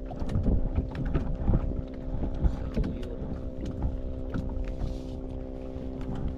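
Small boat engine running at a steady speed, with irregular knocks and splashes over it.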